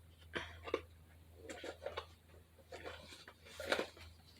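Faint handling noises: a scatter of soft taps, clicks and rustles as small craft supplies are picked up and moved, the loudest cluster near the end, over a steady low electrical hum.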